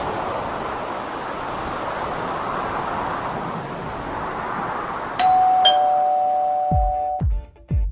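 Steady rushing noise, then a two-note ding-dong chime about five seconds in, its two tones held for about two seconds; near the end, music with a thumping bass beat starts.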